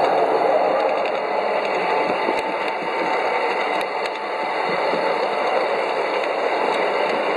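A 5-inch gauge garden railway locomotive running along its track: a steady whirring of the drive and wheels on the rails, with an occasional sharp click.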